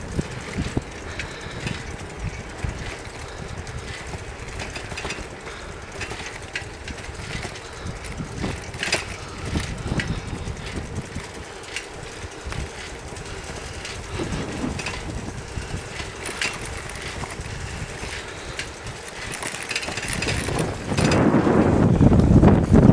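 Wind buffeting the microphone of a camera carried on a moving bicycle, with scattered clicks and rattles from the bike. The wind noise grows much louder near the end.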